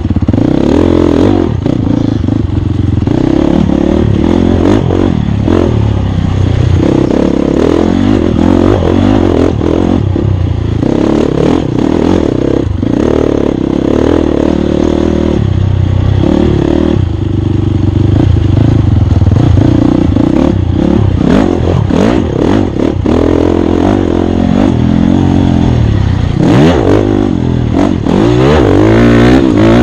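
Dirt bike engine revving up and down as it is ridden hard over an off-road race course, with frequent knocks and clatter from the bike over rough ground. Near the end the revs climb steadily.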